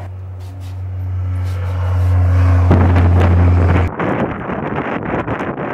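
A steady low machine hum that grows louder and stops abruptly about four seconds in, followed by wind buffeting the microphone.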